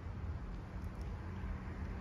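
Low, uneven rumble of wind buffeting the microphone, over a faint steady hum.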